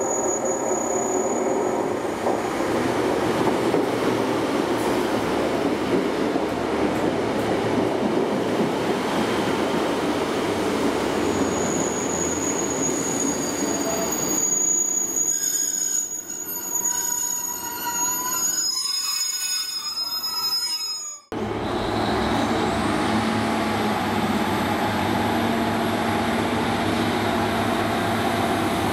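A passenger train running on the line, a steady rumble of wheels on rail, with a thin, high-pitched wheel squeal from about twelve seconds in. About twenty-one seconds in the sound breaks off abruptly, and train running noise resumes with a rising whine.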